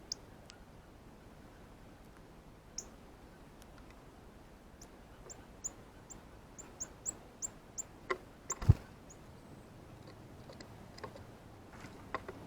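Male northern cardinal giving sharp, high chip notes: single chips at first, then a run of about ten at roughly three a second, its feeding chirp. A loud thump comes once about two-thirds of the way through.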